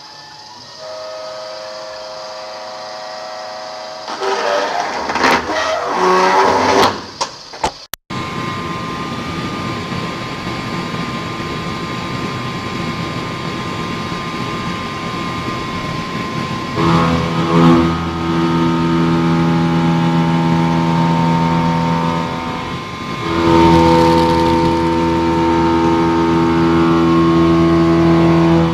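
Machine-tool motors running with steady, layered humming tones. The sound changes abruptly several times, with a brief drop-out about eight seconds in.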